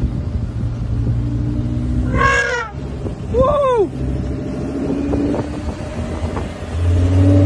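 Steady low rumble of a car's engine and tyres, heard from inside the moving car. About two and three and a half seconds in come two short, high-pitched calls, the second rising and falling in pitch. The rumble swells near the end.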